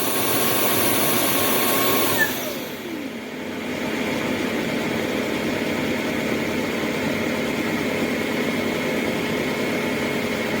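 Dreame H12S wet-and-dry vacuum running its self-cleaning cycle in the dock, its motor and brush roller running steadily. About two seconds in, the pitch falls and the level dips briefly before it settles into a steady, lower run.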